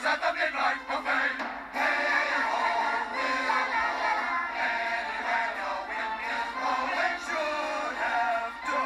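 Music: a chorus of voices singing a show tune with instrumental backing, thin, with almost no bass.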